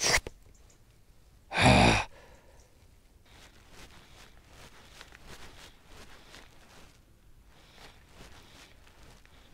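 A person's loud, breathy sigh about two seconds in, after a short sound at the very start; then only faint rustling and small clicks.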